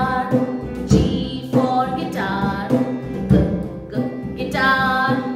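A children's phonics song: singing over an instrumental backing track, with a low thump about once a second.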